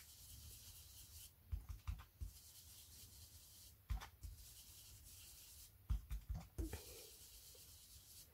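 Faint dabbing and rubbing of an ink blending brush over a plastic stencil on card, heard as soft taps in three short clusters, one of them as the brush is loaded on an ink pad.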